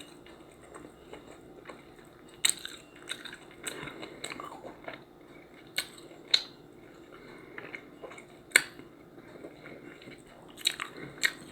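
A person chewing and biting into a rib dinner close to the microphone, with wet mouth smacks and sharp clicks every second or so.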